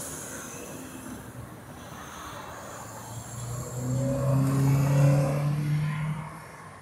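Diesel tractor-trailer engine pulling past: a steady drone swells up about three and a half seconds in, climbs slightly in pitch, and fades near the end, over the hum of passing traffic.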